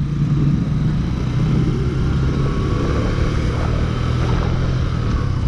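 Suzuki motorcycle engine running steadily at cruising speed, with wind and road noise.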